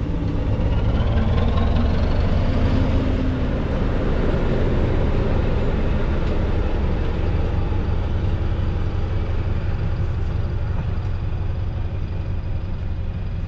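Diesel-hauled train running, with the SM42 diesel locomotive at its head: a steady heavy low rumble of engine and rolling wheels, loudest in the first few seconds and slowly easing off.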